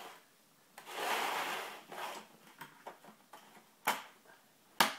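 Plastic base-plate panels of a Space Rail model roller coaster kit scraping across a wooden parquet floor for about a second. Then come a few light clicks and two sharper clicks as the panels are pushed together and joined.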